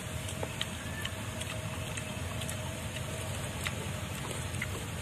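Low steady outdoor background rumble, with a faint steady hum through the first three seconds or so and a few faint clicks.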